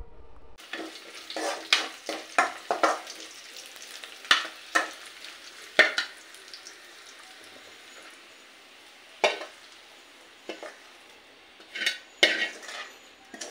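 Steel spoon stirring and scraping tempering in a metal kadai over a faint steady sizzle of frying, in irregular scrapes and clinks. Near the end the spoon scrapes the tempering out of the kadai into the pot of saaru.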